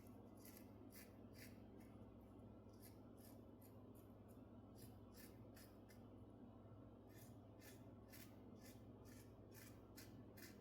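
Safety razor scraping through lathered stubble in faint, short strokes, about two or three a second, with a break of about a second just past the middle. A steady low hum runs underneath.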